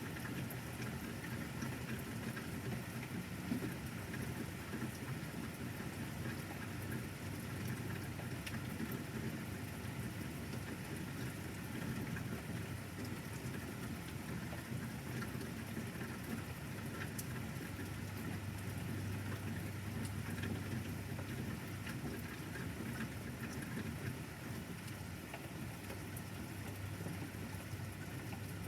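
Steady rain falling, with scattered individual drops ticking, and a low rumble that grows stronger about two-thirds of the way through.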